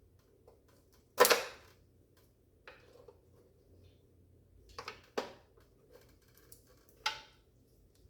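Taillight parts being handled: a sharp knock about a second in, then a few fainter clicks and taps spread through the rest.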